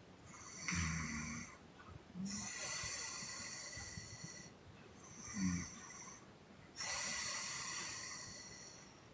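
A woman snoring in her sleep: twice, a short low snore is followed by a long, hissy, puffing breath out that slowly fades.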